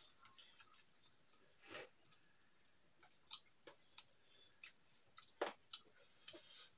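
Faint sounds of eating by hand: chewing and scattered soft clicks of fingers and rice against metal plates, with a couple of slightly louder taps about two and five and a half seconds in.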